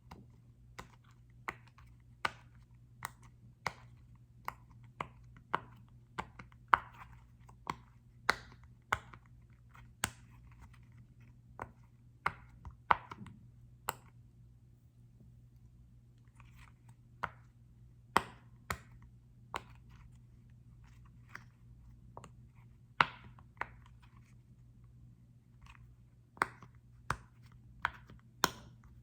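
Tapping and clicking on a small football-shaped object, single sharp taps at an uneven pace of about one or two a second, pausing for a few seconds about halfway through. A faint steady hum lies underneath.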